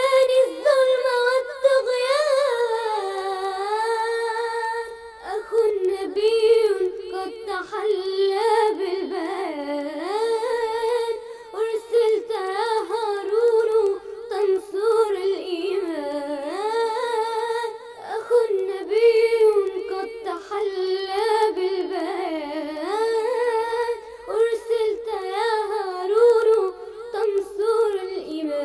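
Solo vocal music: a single voice sings a slow melody that winds up and down in many small ornamental turns, with no instruments or beat heard.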